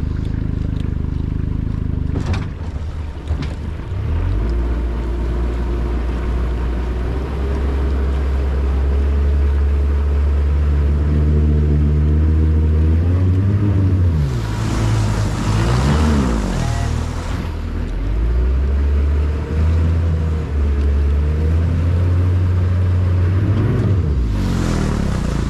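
Honda 90 hp four-stroke outboard running as the boat motors across the water, its pitch rising and falling several times midway as the throttle changes. A rushing noise sweeps in for a few seconds in the middle and again near the end.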